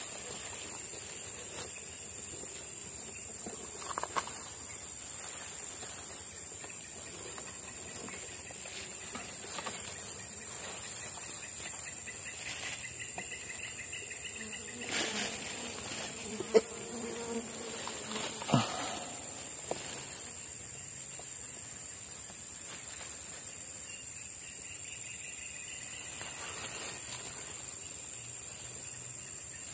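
A steady high-pitched drone of insects in the vegetation, with a few brief rustles and sharp clicks of handling in the grass about halfway through.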